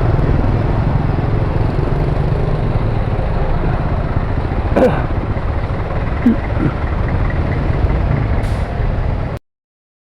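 Yamaha NMAX scooter on the move: steady engine and wind rumble at the rider's microphone, with a short falling sound about five seconds in. The sound cuts off abruptly about nine seconds in.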